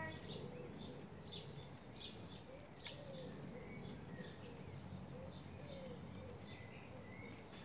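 Faint garden birdsong: short high chirps repeating about twice a second, over low soft cooing notes.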